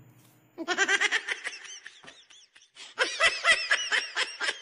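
Canned laughter in two bouts of rapid, pulsing laughing; the second bout begins about three seconds in.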